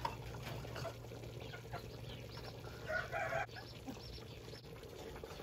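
Chickens clucking, with one louder call about three seconds in.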